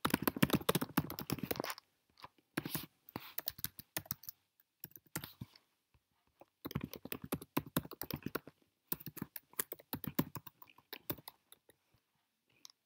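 Typing on a computer keyboard: several quick runs of key clicks with short pauses between them, dying away about a second before the end.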